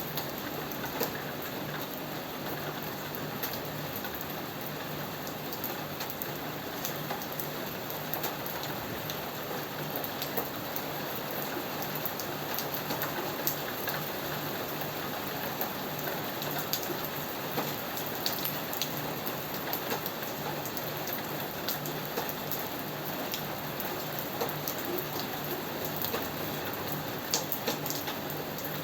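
Steady rain falling on a surface, with many individual drops ticking sharply over a continuous hiss.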